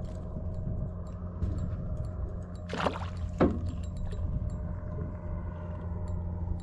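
Water lapping against a small boat's hull over a steady low drone, with two brief sharp sounds about three seconds in, half a second apart.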